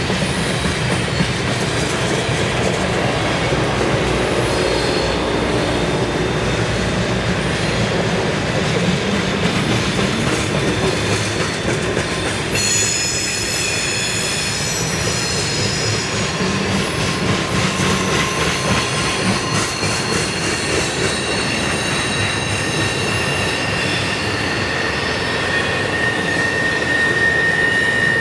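Freight train cars rolling past close by: the steady rumble and clatter of steel wheels on rail as boxcars and then double-stack container cars go by. A cluster of high-pitched wheel squeals comes in about halfway through, and a steady high squeal sets in near the end.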